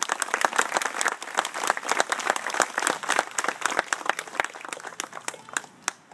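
A small crowd applauding: dense clapping that thins out and stops about five and a half seconds in.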